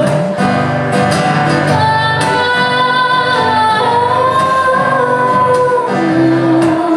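A woman singing with guitar accompaniment, holding long sustained notes.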